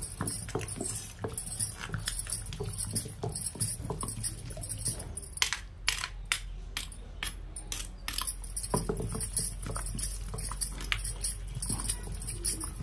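Stone pestle pounding and grinding cooked tomato and coriander chutney in a stone mortar: irregular repeated knocks of stone on stone, several a second. Glass bangles clink along with the strokes, with a run of sharper clicks in the middle.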